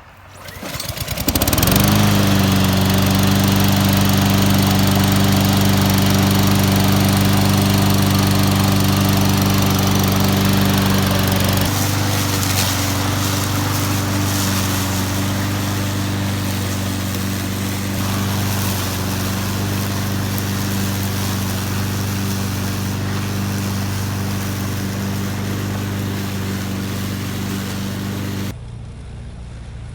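Honda GCV200 single-cylinder engine on a walk-behind lawn mower starting up about a second in and settling into a steady run. Its tone shifts about twelve seconds in, and the sound cuts off abruptly near the end.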